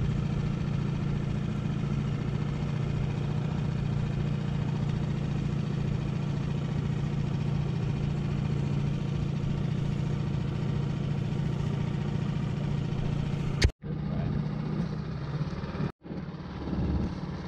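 Small outboard motor pushing an inflatable dinghy, running with a steady hum. The sound cuts out abruptly twice for an instant near the end.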